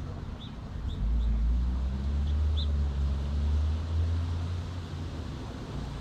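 Low engine rumble of a passing motor vehicle, swelling about a second in and fading near the end. A few short, high bird chirps come over it in the first half.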